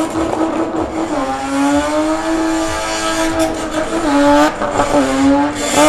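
Car engine held at high revs while the driver spins the car, its wheels spinning and screeching on the tarmac in tyre smoke. The high, steady engine note sags about a second in and dips briefly a few times near the end.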